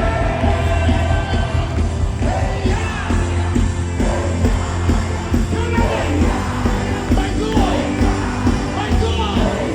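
Live worship music: a band with a steady bass under a sung melody.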